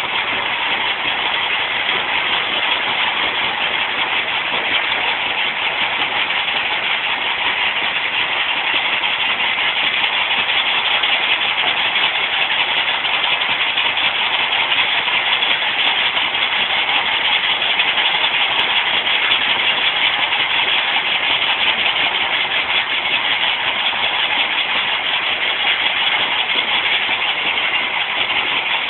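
Stone crusher machine running with a steady, even mechanical noise.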